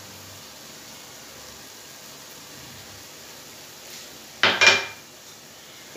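Quiet room tone, then about four and a half seconds in a short, loud clatter of kitchen dishes with a brief ringing clink, as a small bowl knocks against a dish or the pan.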